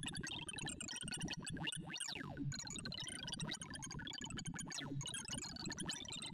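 Sorting-algorithm sonification from ArrayV: a rapid stream of short synthesized tones, each pitched by the value of the array element being compared or written, as Tim Sort builds sorted runs from 2,048 shuffled numbers. A few quick pitch sweeps run through it around two seconds in.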